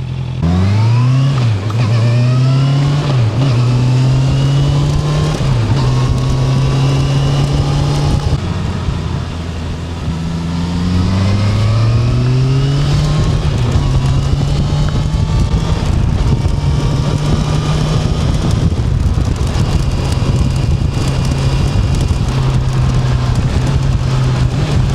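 Honda CB650F's inline-four engine pulling away and accelerating up through several gears, easing off briefly partway through, then accelerating again and cruising at a steady pitch.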